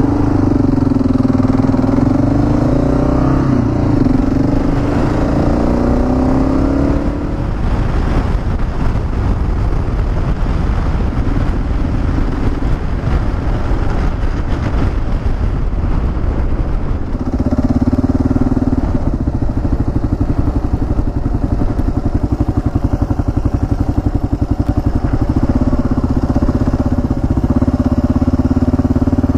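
Motorcycle engine running under way, heard from on the bike with wind noise. Its pitch rises and falls through the first seven seconds or so, a rushing wind-and-road noise takes over for a while, then from about seventeen seconds in the engine holds a steadier, lower-speed note.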